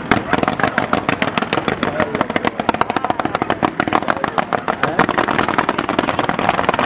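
Ground-fired fireworks barrage launching comets in fans, a rapid, even string of sharp shots at about eight to ten a second.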